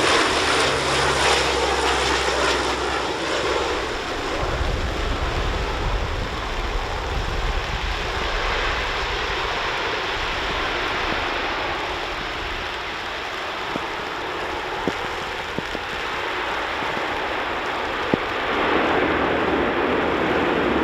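C-130 Hercules four-engine turboprop aircraft running, a steady loud rushing drone. A low engine hum is clear in the first few seconds and gives way to a deeper rumble.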